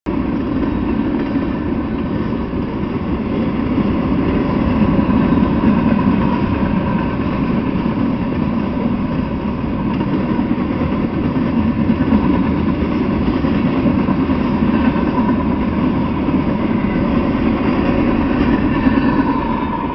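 Freight train cars, tank cars and boxcars, rolling past on the tracks: a loud, steady rumble and clatter of steel wheels on rail.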